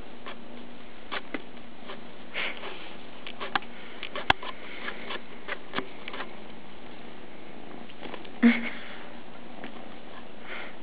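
Scattered light taps, rustles and soft sniffs as a kitten bats at a dangled toy on a person's lap, over a steady hiss. A sharp click about four seconds in and a louder short sound about eight and a half seconds in.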